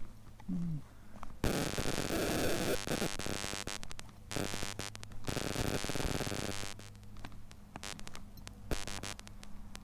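Two long bursts of loud scratchy noise on a body-worn camera's microphone, starting about a second and a half in and again around five seconds, while the wearer walks; short ticks and a faint low hum in between.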